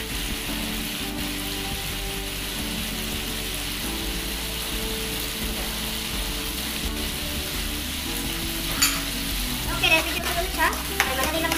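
Sardines in their sauce with onions and garlic sizzling steadily in a frying pan. From about nine seconds in, a spatula scrapes and stirs through the pan in several irregular strokes.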